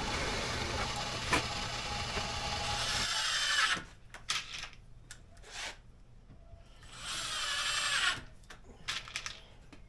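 A drill press runs steadily for the first few seconds while boring into wood, and stops abruptly. Then a cordless drill drives screws into the wooden waste board: short bursts, and one longer run a little before the end that climbs in pitch and stops.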